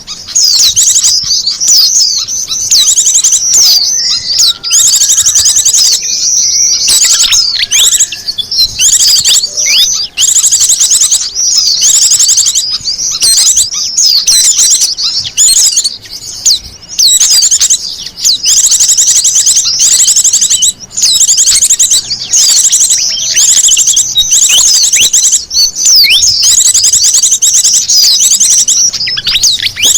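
Many small wild birds chirping and trilling at once in a dense, continuous, high-pitched chatter with only brief gaps: a bird-lure (pikat) call recording meant to draw in small birds.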